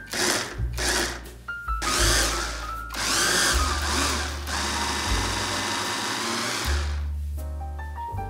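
Electric mini food chopper whirring in a series of short pulses, then two longer runs, as it chops carrot and apple into a pulp. It stops about seven seconds in. Background music with piano plays throughout.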